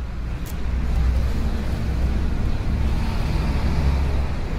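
Steady low rumble of outdoor background noise, strongest in the deep bass.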